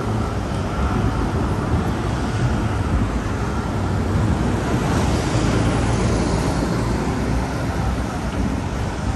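Steady road traffic: a continuous rumble of engines and tyres, with wind buffeting the microphone.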